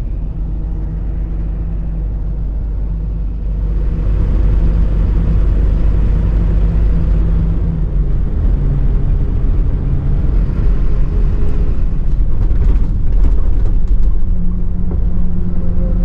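Mercedes-Benz Atego expedition truck's diesel engine running steadily on the move, a low hum with road noise. The road noise widens and gets louder about three and a half seconds in.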